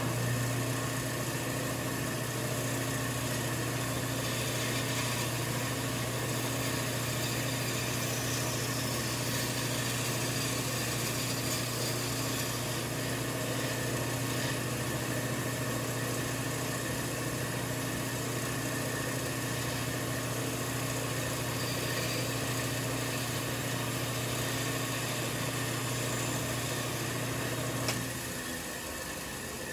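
Band saw motor running steadily with a low hum while its blade cuts a curve through a wooden board; the saw is switched off about 28 seconds in and the hum drops away.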